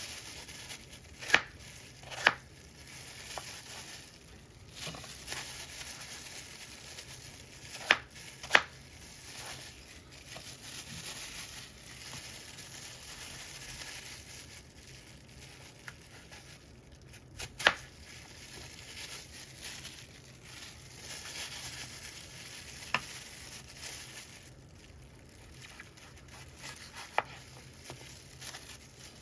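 Knife cutting apples on a cutting board: soft scraping and rustling of the blade through the fruit, with a few scattered sharp knocks of the knife striking the board.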